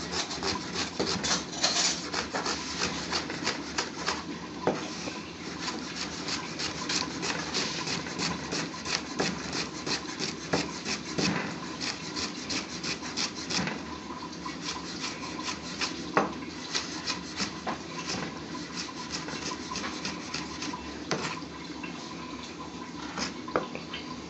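Chef's knife chopping sliced grilled onion on a plastic cutting board: a fast run of sharp taps of the blade on the board, thinning out toward the end.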